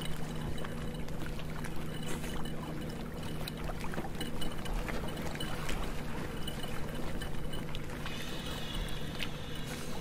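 Water sloshing and trickling against a boat at the sea surface, over a steady low hum.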